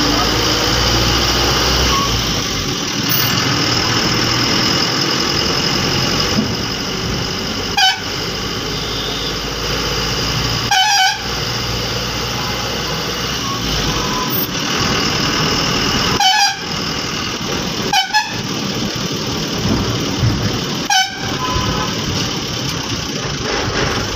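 Ashok Leyland bus's diesel engine running while driving in traffic, heard from inside the cab. A horn sounds in short blasts about five times, a few seconds apart.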